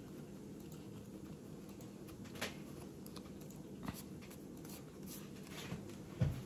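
Faint handling and rustling of paper craft pieces as glued hearts are pressed into a paper ticket pocket, with a few light clicks and a soft knock near the end, over a faint steady hum.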